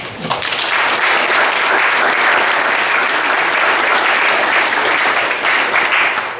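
Audience applauding, the clapping building up within the first second, holding steady, then dying away near the end.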